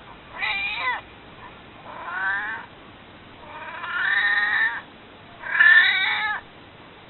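Elderly domestic cat meowing four times in a row, begging to be picked up and held. The third meow is drawn out and the fourth is the loudest.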